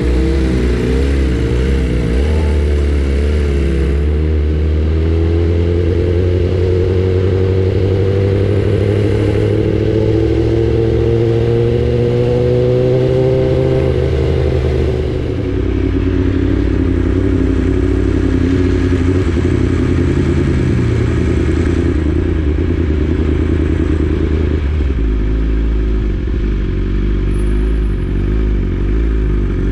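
BMW S1000RR inline-four sport bike engine running under way. Its pitch climbs slowly for about ten seconds, drops, then settles and shifts again later.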